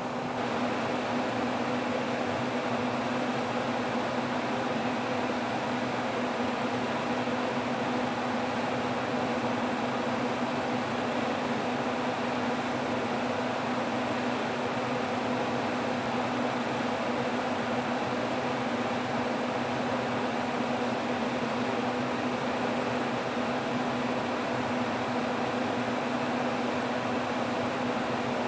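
Steady whirring noise with a constant low hum, as from a running fan.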